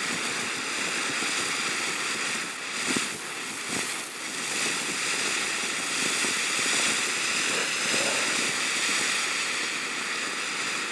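Dragon Tears firework fountain burning with a steady hiss, with a couple of brief pops about three and four seconds in.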